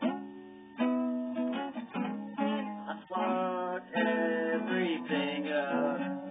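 Electric guitar played, a string of chords and picked notes each struck and left ringing, starting a little under a second in.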